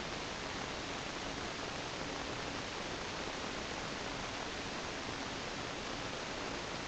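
Steady hiss from a cheap recorder's noise floor, with a faint low hum that comes and goes; no whistle or call stands out.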